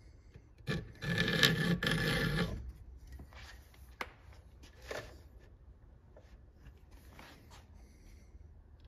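Flat file rasping on the steel depth gauges (rakers) of a Husqvarna 372XP's saw chain, lowering them: a loud spell of filing about a second in that lasts about a second and a half. A few light clicks follow.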